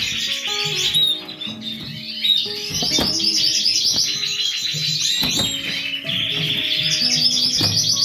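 Canaries singing, with fast trills and chirps, over background music of plucked, guitar-like notes.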